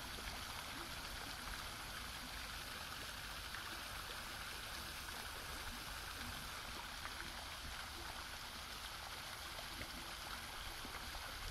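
Running water flowing in a steady, even rush.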